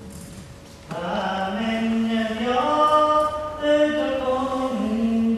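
A single voice singing a traditional song unaccompanied, on long held notes. A short break for breath comes near the start, and the singing picks up again about a second in.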